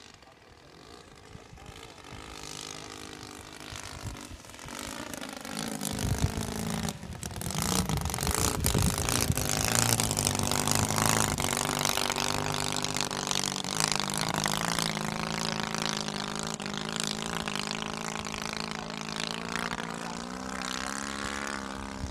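Valach 120 B2-4T four-stroke twin engine and propeller of a 1:3-scale RC Savage Bobber model plane in flight, a steady drone. It grows louder as the plane approaches, is loudest as it passes close overhead about ten seconds in, then slowly fades as it flies off.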